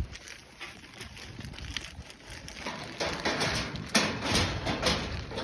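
Irregular rustling and crunching, with louder scrapes about three and four seconds in, as donkeys are hand-fed.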